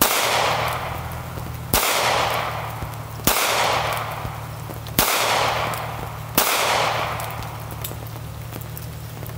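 Five pistol shots from a small handgun, fired one at a time about one and a half seconds apart, each followed by an echo that fades over about a second.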